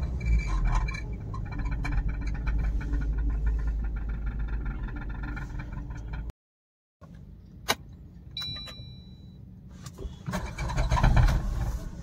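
Suzuki Baleno engine running with a rapid rattle from the exhaust silencer vibrating under the body. The mechanic traces it to the silencer touching a strip, which he says was pushed against it when the car struck a pothole. The sound cuts out briefly about six seconds in and comes back quieter, with a click and a short high beep, before the rattle grows louder again near the end.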